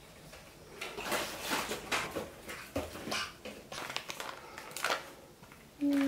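A child's hands crinkling a plastic pack of flushable wet wipes and pulling out a wipe: irregular rustles and light clicks, starting about a second in.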